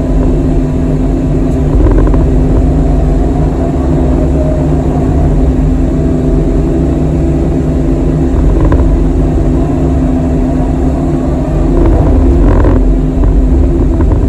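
Kobelco SK85 excavator's diesel engine running steadily at working speed while the machine moves dirt, with a few faint knocks of the work about 9 and 12 seconds in.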